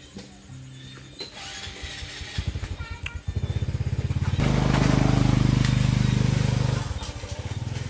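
A small engine running nearby: its rapid firing pulses start about two seconds in, build to their loudest for a couple of seconds in the middle, then ease back to a lower, steady running level.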